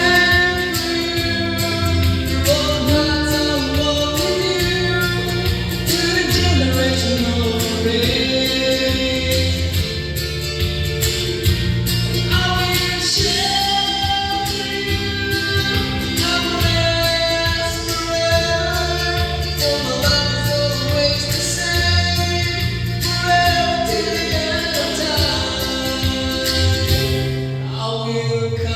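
A gospel song: a voice singing a melody over an instrumental backing track with a steady bass line.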